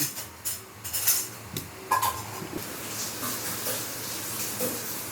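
A few sharp clatters and a brief clink of metal utensils or pots, then a steady hiss from about three seconds in.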